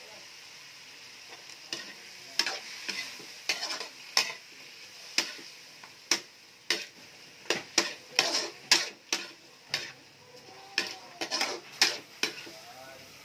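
Metal ladle scraping and knocking against a wok as chicken pieces are stir-fried over a steady sizzle. The strokes start about two seconds in and come irregularly, roughly twice a second.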